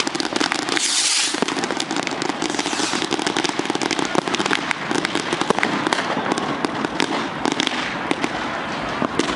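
Fireworks going off, a constant rapid crackle of many small bangs, with a brief hiss about a second in.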